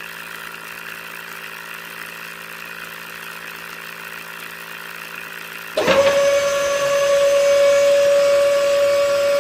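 A faint steady hum, then about six seconds in a small electric motor switches on with a quick rising whine and runs on at a steady high pitch.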